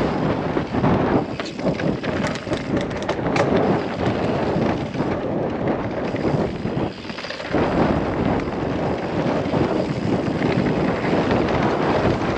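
Wind buffeting the camera microphone and tyres rolling over a dirt trail as a Santa Cruz Bullit e-mountain bike descends at speed, with a few sharp knocks from the bike over the rough ground. The roar dips briefly about seven seconds in.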